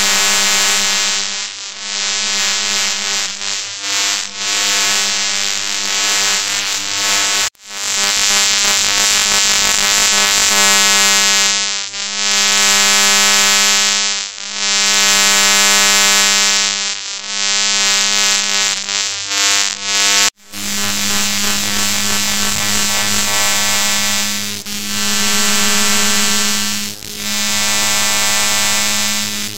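Electrical shock and surge sound effect: a loud, harsh electric buzz over a steady low hum. It swells and dips every few seconds and cuts out for an instant twice.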